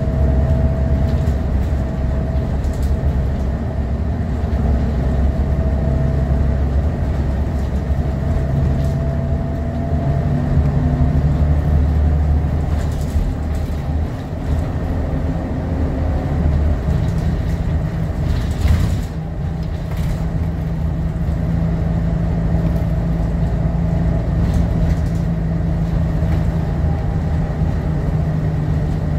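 Scania L94UB bus's rear-mounted diesel engine and automatic gearbox, heard from inside the passenger cabin while driving. The engine note steps up in pitch about two-thirds of the way through, with a few short rattles from the body near the middle.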